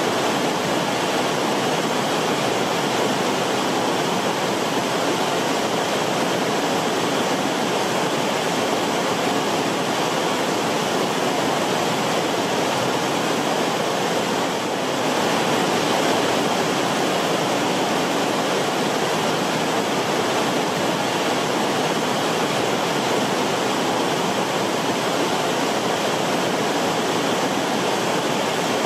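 River water rushing steadily, with a brief dip in level about halfway through.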